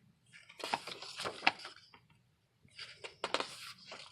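Paper pages of a picture book rustling and crackling as they are handled and turned, in two short bursts about a second apart.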